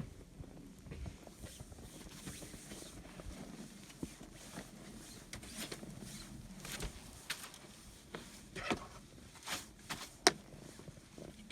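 A run of short scrapes and crunches that come more often after about five seconds, with one sharp click about ten seconds in.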